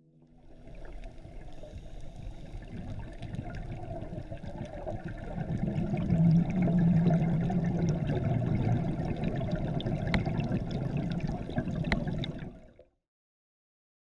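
Underwater bubbling and gurgling of scuba divers' exhaled air rising from their regulators, with scattered small clicks. It grows louder about halfway through and cuts off suddenly near the end.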